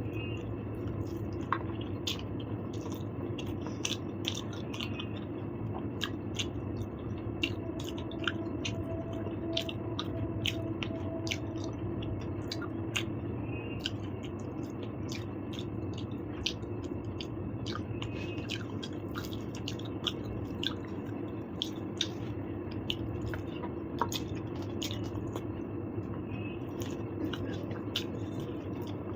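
Close-up chewing and wet mouth sounds of someone eating, with frequent small sharp clicks, over a steady low background hum.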